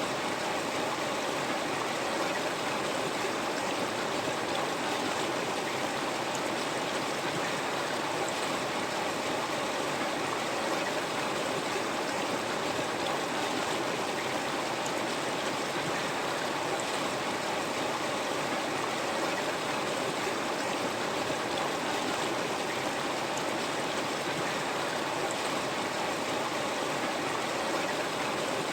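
River water flowing, a steady even rushing.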